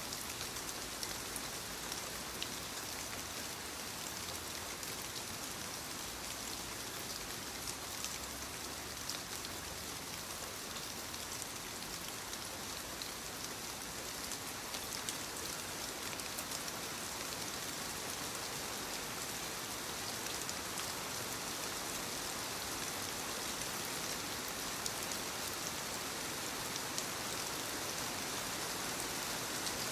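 Soft steady rain pattering on leaves, a constant hiss with many small drop ticks throughout.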